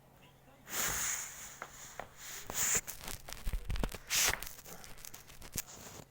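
Pekingese dog playing with a toy: irregular rubbing, scuffling and clicking noises with a few short hissing bursts.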